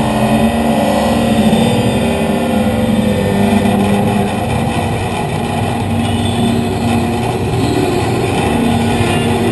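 Robot's drive motor running steadily with a whine, heard close up from the camera riding on the robot as it rolls over pavement.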